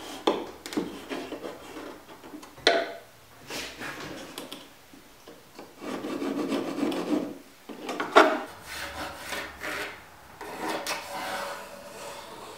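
Thin cedar strips rubbing and scraping against the wooden hull planks and bench as they are held in place, fitted and marked, with a longer stretch of rubbing in the middle. Two sharp wood-on-wood knocks, about three and eight seconds in.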